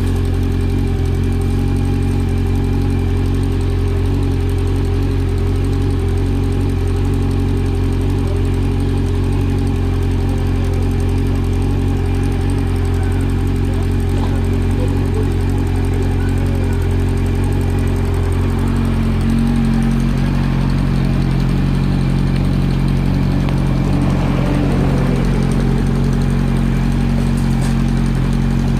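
Motorcycle engine idling steadily; about two-thirds of the way in its note changes slightly and then holds steady again.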